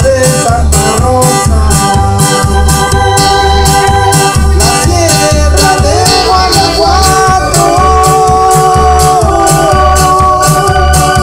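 A live band playing loud, amplified Latin dance music. A keyboard holds and shifts sustained notes over a bass thump that repeats about every three-quarters of a second, with a steady high percussion beat.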